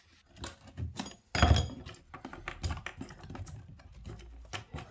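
Wooden carpet gripper strips being prised up off the floor: a run of sharp clicks, cracks and scrapes, the loudest about a second and a half in.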